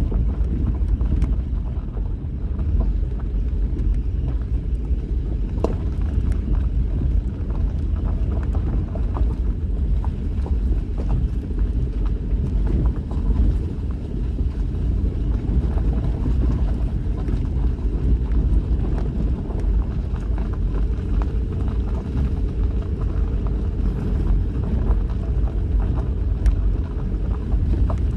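Vehicle driving up a rough dirt track: a steady low rumble of engine and tyres, with scattered small knocks and rattles.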